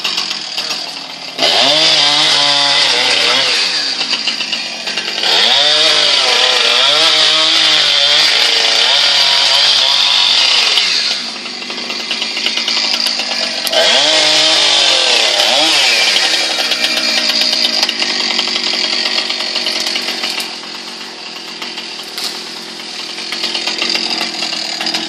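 Chainsaw revving hard in three long spells, its pitch wavering as it cuts. Between and after the spells it drops back to a lower, steadier run.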